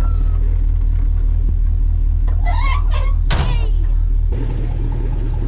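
LS V8 in a 1954 Chevy running on the road, a steady low rumble heard from inside the car. A brief pitched sound and a sharp knock come about three seconds in, and the rumble turns smoother and a little quieter near the end.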